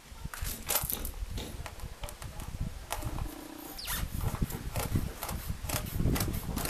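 Knife sawing through the rubber sidewall of an old car tire: irregular scraping, creaking strokes with crackles, and a brief low creak of the rubber about three seconds in.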